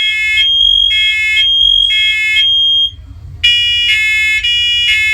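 Several interconnected First Alert Onelink smoke and carbon monoxide alarms sounding their test alarm together. A steady piercing high tone runs under groups of shrill, buzzy beeps about half a second long, with a short break about three seconds in. The alarms are out of step, one coming in late.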